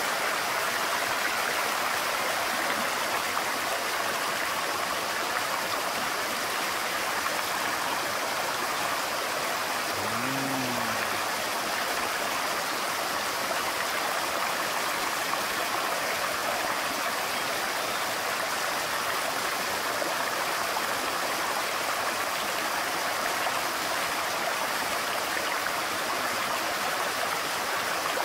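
Shallow mountain stream rushing steadily over rocks, an even wash of running water.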